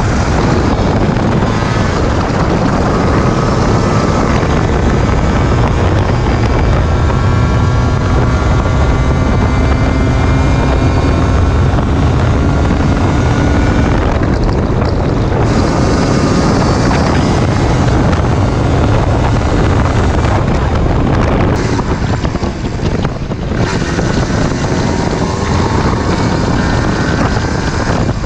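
Yamaha DT 125 single-cylinder two-stroke engine under way, its pitch rising again and again as it revs up through the gears, with short drops between. Heavy wind buffets the microphone, and the throttle eases off briefly about three-quarters of the way through.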